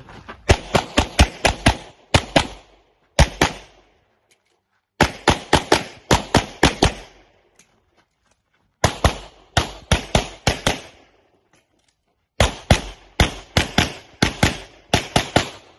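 Pistol fire on an IPSC course of fire: rapid strings of six to ten shots fired in quick succession, separated by pauses of one to two seconds while the shooter moves or reloads, with one single shot in the first pause.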